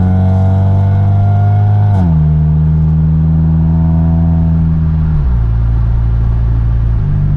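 Car engine pulling through the gears: its pitch climbs steadily, then drops sharply about two seconds in and again about five seconds in as the gears change, and jumps back up near the end.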